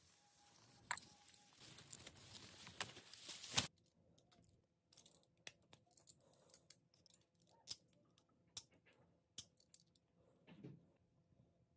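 Rustling and crackling of a bush's leaves and twigs, growing louder until it stops abruptly a little under four seconds in. Then faint, irregular small clicks and scrapes of a knife shaving the bark off a thin green twig.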